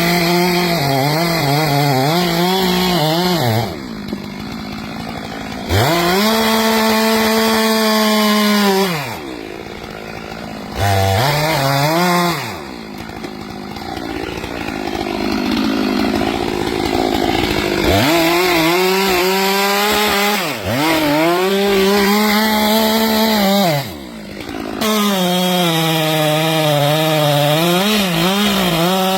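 Chainsaw running hard, its engine pitch repeatedly sagging and climbing back as it works through wood, with several short drops to a quieter, lower running between cuts.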